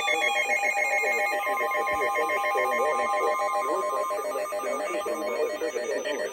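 Emergency Alert System attention tone: a loud, steady, harsh electronic alarm tone sounded ahead of a severe thunderstorm warning.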